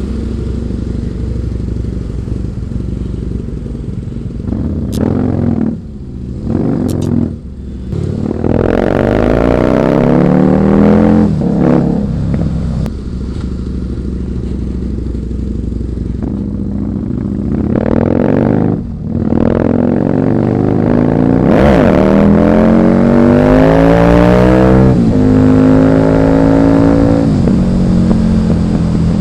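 Husqvarna Nuda 900R's parallel-twin engine pulling under acceleration, its pitch rising repeatedly through the gears. There are a few quick throttle closes and shifts along the way, and it holds a steady high note near the end.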